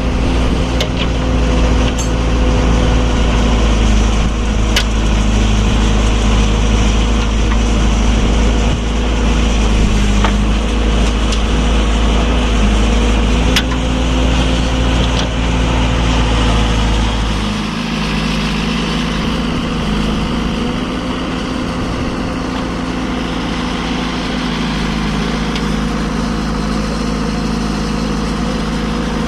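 Diesel engines of heavy earthmoving machinery running steadily. A little past halfway the deep low rumble drops away and the engine sound becomes lighter.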